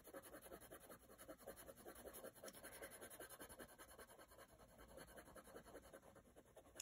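Faint scratching of a Colorpockit colored pencil pressed hard on a coloring card, in quick, uneven strokes.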